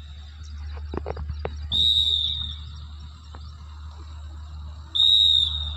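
A coach's whistle blown in two short blasts about three seconds apart, each about half a second of a steady shrill note, signalling the counts of a group abdominal exercise drill.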